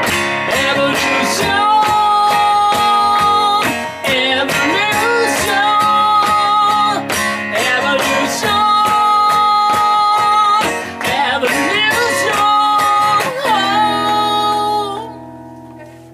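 Acoustic guitar strummed with a man singing long held notes, the song closing on a final chord that rings out and fades away over the last couple of seconds.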